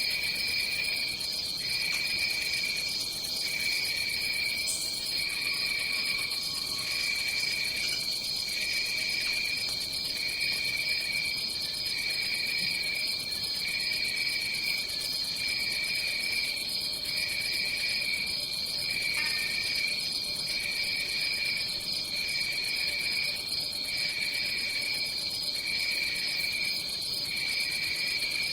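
Crickets chirping in a night chorus: one continuous high trill, with a lower chirping that repeats about once a second.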